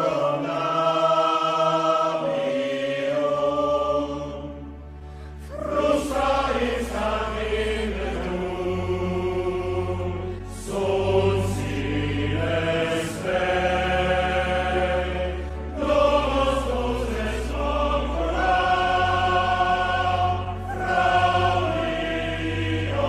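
Choir chanting in long held notes, joined about three seconds in by a low steady drone; the singing falls away briefly before picking up again.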